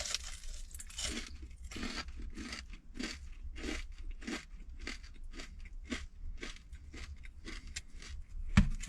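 Close-up crunching and chewing of a crispy fried black-pepper chicken leg cutlet: a crunchy bite at the start, then steady chews at about two to three a second, with a sharp knock near the end.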